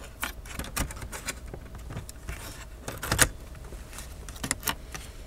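Light clicks, taps and rattles of a laptop motherboard being handled and pressed down into the plastic and metal base of an HP Pavilion dv7 laptop, with a louder knock about three seconds in.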